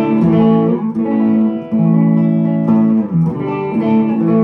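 Schecter Sun Valley Super Shredder electric guitar played through an amp and 1x12 cabinet in standard tuning: a run of held chords, changing every second or so.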